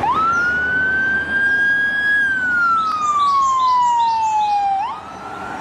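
A fire-engine siren wailing. The pitch jumps up, holds high and rises a little, then falls slowly for a couple of seconds before jumping back up near the end.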